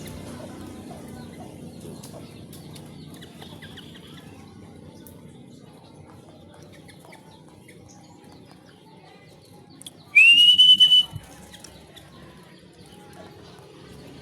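A single loud whistle about ten seconds in, lasting about a second, sliding up and then holding steady, over a faint background of small chirps and clicks.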